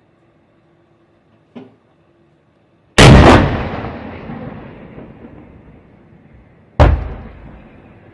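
Finnish 130 mm 53 TK coastal gun turret firing two shots about four seconds apart. Each sharp blast is followed by a long rolling echo that dies away over several seconds; the first is the louder.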